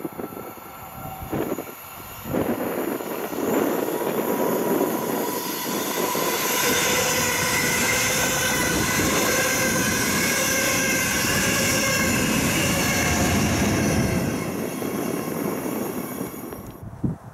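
A Class 146 electric locomotive hauling double-deck coaches passes at speed: the wheel-and-rail noise swells about two seconds in and holds steady as the coaches go by. A steady high-pitched ringing runs through the pass. The noise fades away near the end.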